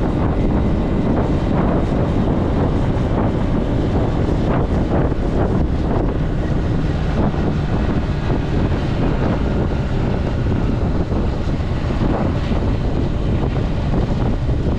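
Zontes C125 125cc scooter engine running steadily while riding, mixed with heavy wind buffeting on the microphone.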